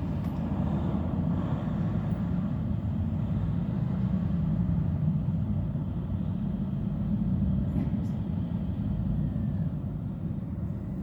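Steady low rumble of outdoor background noise, like traffic or an idling engine.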